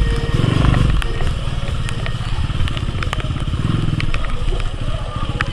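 Motorcycle engine running with a steady pulsing note that swells briefly about half a second in and again near the end.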